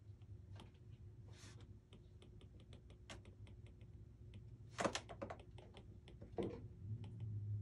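Stylus tip tapping and sliding on a tablet's glass screen during handwriting: a quick, irregular run of light clicks, with a louder brief noise just before five seconds in. A low steady hum runs underneath.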